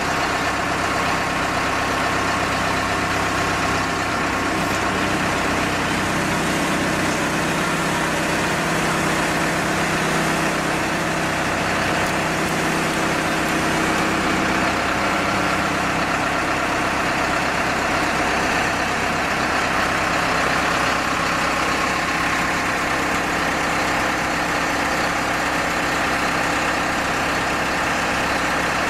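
The HFDX-2 full-hydraulic core drilling rig's power unit running steadily, its engine driving the hydraulic system. A low part of the hum drops away about halfway through.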